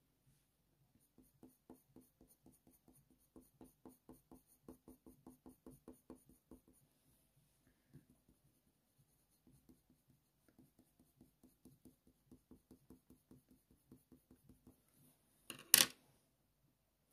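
Faint, quick scratching strokes of a Faber-Castell Polychromos coloured pencil on smooth hot-press watercolour paper, a few strokes a second, in two runs with a pause between. Near the end comes a single sharp clack.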